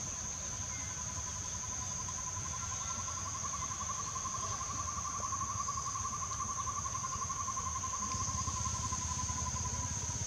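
Insects calling: a steady high-pitched drone throughout, joined about two seconds in by a lower, finely pulsed trill that swells and then fades out near the end, over a steady low rumble.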